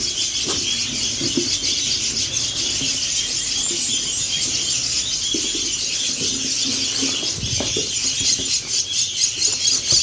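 A crowd of hand-fed starling and myna nestlings begging inside cardboard boxes: a continuous, loud chorus of high-pitched cheeps. A few soft knocks of cardboard being handled.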